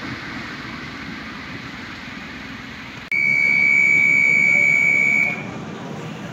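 A Brussels metro train's door-closing warning: one steady high beep, about two seconds long, starting about three seconds in. Before it comes the faint, fading rumble of a tram moving away.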